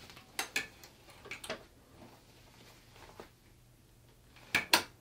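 Light clicks and knocks as an 8x9 Mighty Hoop with its metal bracket is handled and fitted to a multi-needle embroidery machine. About half a second before the end come two sharp, loud clicks in quick succession as the hoop's bracket is latched onto the machine's hoop arms.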